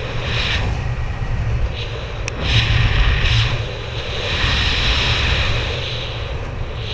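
Air rushing over a helmet-mounted camera's microphone during a parachute descent under an open canopy: a steady low rumble of wind buffeting with a hiss that swells and fades several times. A single sharp click about two seconds in.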